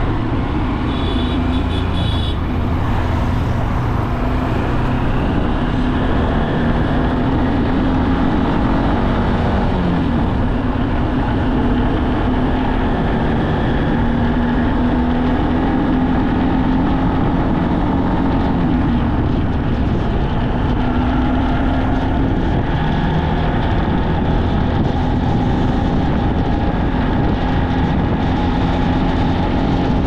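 Road noise of a vehicle travelling along a multi-lane highway: a steady low rumble with an engine hum that drifts up and down in pitch.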